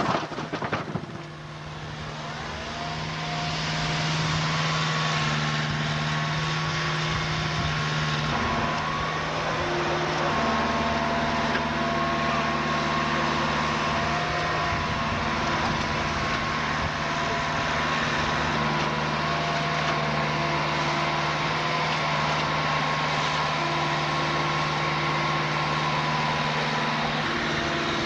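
Heavy vehicle or machinery engine running steadily, a constant hum with a humming drone. It opens with a brief clatter of impacts in the first second, as of sugar beets tumbling from a loader's grab.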